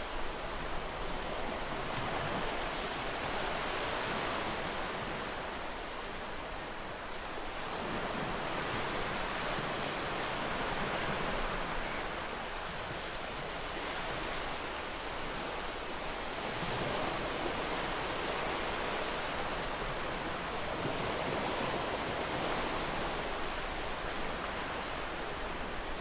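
Ocean surf washing onto a beach: a steady rush of water noise that swells and eases every six seconds or so as waves break and draw back.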